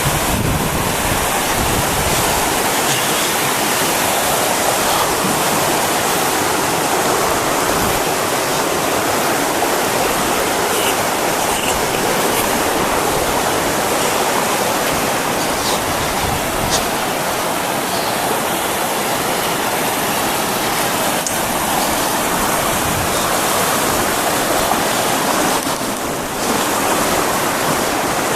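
Steady rush of a backcountry river's flowing water.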